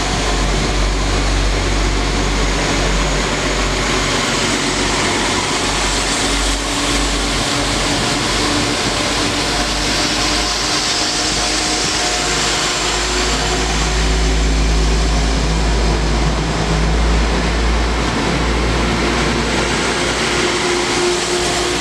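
West Midlands Railway diesel multiple-unit trains running past the platform: a steady diesel engine drone with wheel and rail noise, loudest about two-thirds of the way in.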